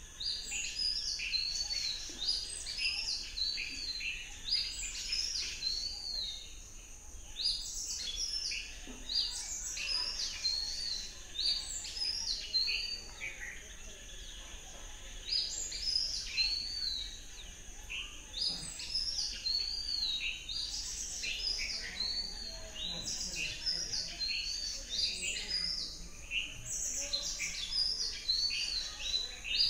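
A chorus of many birds chirping and calling at once, short high notes overlapping one another without a break.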